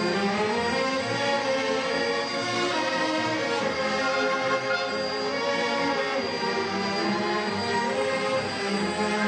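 Symphony orchestra playing classical music, with bowed strings holding long sustained chords.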